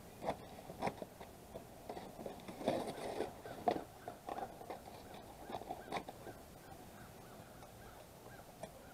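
Scissors snipping through corrugated cardboard, cutting the flaps off a box: a run of irregular crunching snips through the first six seconds, then it stops.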